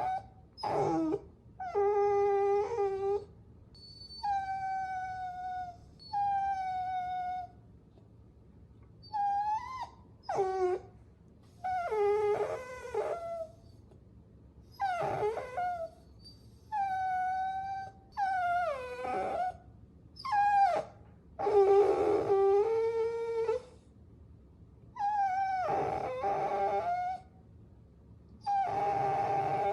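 Puppies whining, a string of high, drawn-out cries about a second long each with short gaps between, some bending up or down in pitch and some overlapping.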